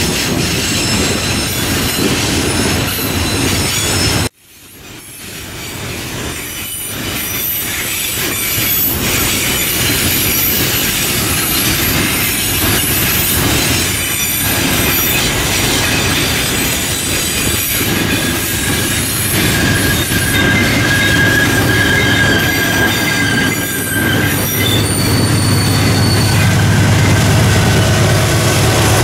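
Freight train of hopper cars rolling past, wheels clattering and squealing on the rails. About four seconds in the sound cuts out and fades back in. Near the end the low rumble of a diesel-electric locomotive's engine grows as it comes alongside.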